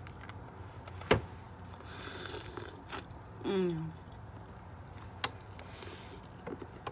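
Close-miked eating noises: a sharp click about a second in, soft mouth and handling sounds, and a brief vocal sound falling in pitch midway. Near the end comes a bite into a seasoned corn on the cob.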